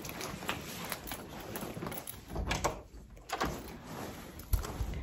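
A door being pulled shut, with knocks and a sharp latch click near the end over rustling handling noise.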